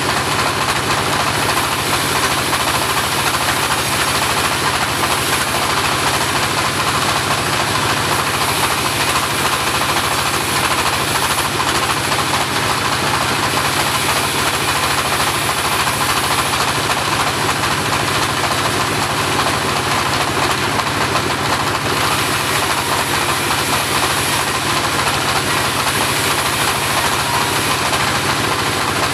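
Homemade engine-driven portable band sawmill running steadily with a loud, even mechanical noise.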